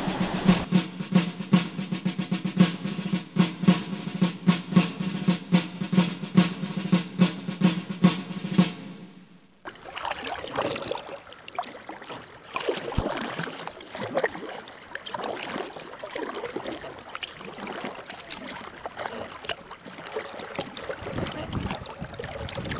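Music with a fast drum beat for about the first nine seconds, which then stops. After that come paddle strokes splashing in the water with scattered small knocks, heard close up from a camera mounted on the kayak's bow.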